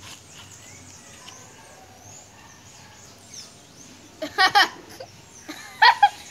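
Faint bird chirping in the background, then two loud bursts of boys' laughter, about four seconds in and again near the end, the second falling in pitch.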